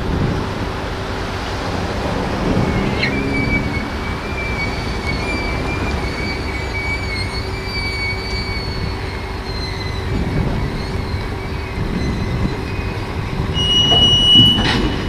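Steel wheels of a Tatra T3 tramcar squealing faintly on the rails as the tram is moved over the low-loader trailer's track, over a steady low rumble. A sharper, higher squeal comes near the end, followed by a single metallic clank.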